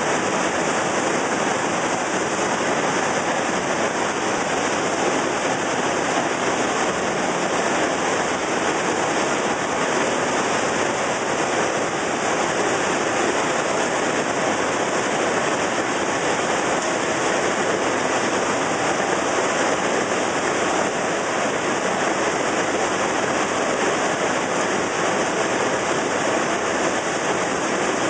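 Steady, even machine noise of a core-filled puffed snack extrusion line running, its electric motors and extruder going at a constant pace with no changes.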